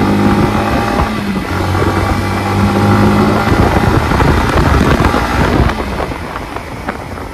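Yamaha MT-15's 155 cc single-cylinder engine running under throttle as the motorcycle picks up speed, with wind rushing over the microphone. About six seconds in the engine note drops away as the throttle eases, leaving mostly wind and road noise.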